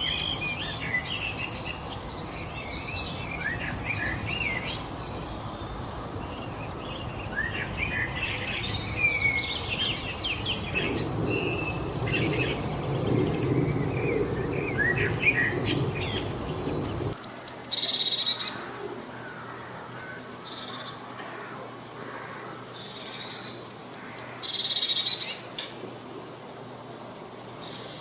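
Songbirds chirping and singing, several at once, over a steady rushing background for about the first seventeen seconds. Then the background drops away abruptly and the calls become sparser, with short high chirps repeated every second or two and a few louder calls between them.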